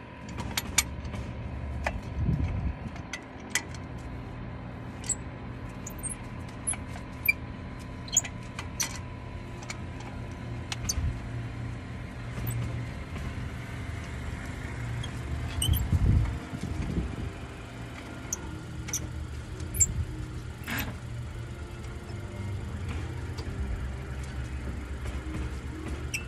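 Light metallic clicks and taps of a metal bar levered against a brake caliper, pressing the piston back, with a few louder knocks. A steady low motor-vehicle hum runs underneath.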